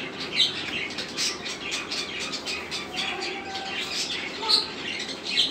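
Birds chirping and squawking in many quick, short, high calls, repeating irregularly.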